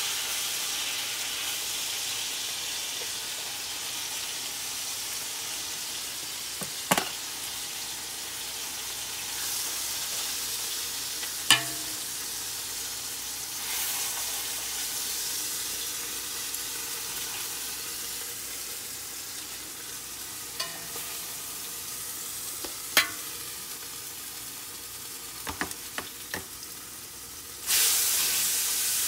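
Hot oil sizzling steadily as seared chicken breasts are laid into an oiled pan, with a few sharp clicks against the pan. The sizzle turns louder near the end.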